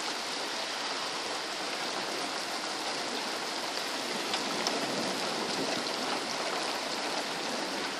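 Rain falling steadily during a thunderstorm: an even hiss, with a couple of faint ticks about halfway through.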